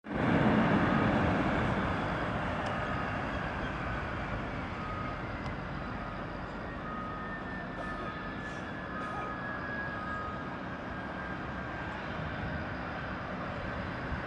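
Boeing 747's four jet engines running as the jet comes in to land, loudest right at the start and then easing off into a steady rush, with a faint whine that slowly falls in pitch.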